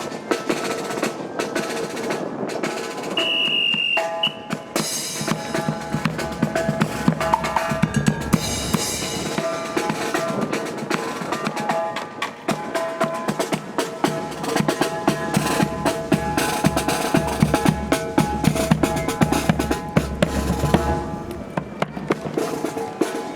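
Marching band drum cadence: snare and bass drums playing a steady, busy rhythm with short pitched notes over it. A short high whistle blast sounds about three seconds in, and wind rumbles on the microphone in the second half.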